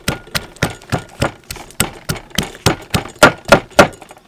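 Wooden pestle pounding garlic cloves in a clay mortar: a steady run of sharp thuds, about three to four strokes a second, the hardest few coming a little after three seconds in.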